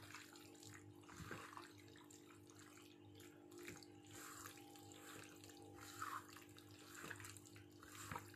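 Faint, irregular wet squishing of gloved hands kneading sliced chicken breast in a sticky tocino marinade, over a steady low hum.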